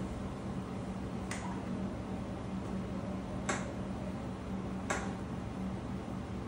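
Three sharp clicks, the middle one loudest, spaced about two seconds and then a second and a half apart, over a steady low hum.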